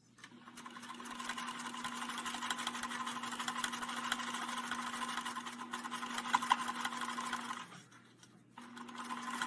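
Electric sewing machine stitching, speeding up over the first second and running steadily, stopping briefly near the end and starting again: top stitching along the bottom edge of a fabric face mask.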